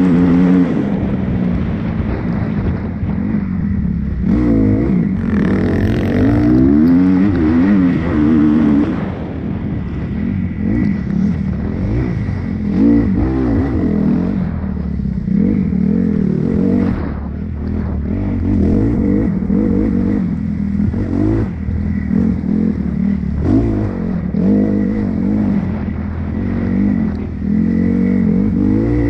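Dirt bike engine running hard, its revs climbing and dropping over and over.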